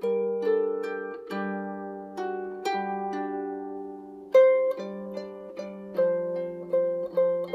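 Background music on a Celtic harp: plucked notes that ring and fade, about two a second, with a louder note about four seconds in.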